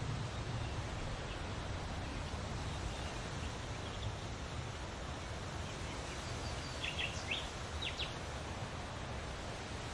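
Steady outdoor background noise with a low rumble, and a few short bird chirps about seven to eight seconds in.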